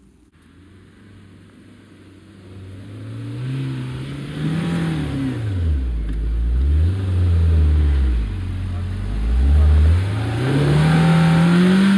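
Suzuki Jimny's 1.5-litre four-cylinder petrol engine revving up and down in surges, louder as it comes closer, with three climbs in pitch, the last near the end the highest. The Jimny is struggling for grip on a trail loosened by rain.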